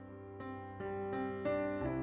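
Slow piano music: a new note or chord about every half second over a held bass note, growing louder.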